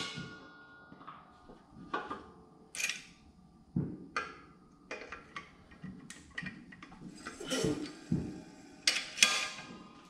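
Scattered light metallic clinks and knocks, about a dozen, from steel press adapters being handled and set on a hydraulic shop press while setting up to press in a subframe bushing.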